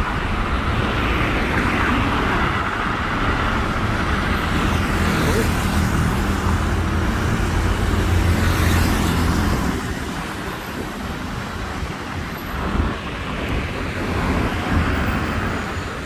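Road traffic running alongside: a motor vehicle's engine rumbles close by, loudest a little over halfway, then drops away about ten seconds in, leaving lighter traffic noise.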